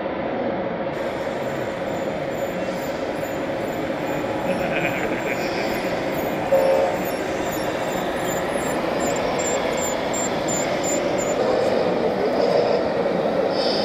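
Electronic sound units of radio-controlled model trucks playing a steady diesel engine drone over the murmur of a crowded hall, with a short louder blast about six and a half seconds in.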